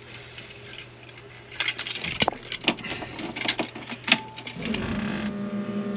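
Car keys jingling and clicking against the ignition switch of a 1965 Ford Mustang as the key goes in and is turned. About four and a half seconds in, a steady hum starts and holds.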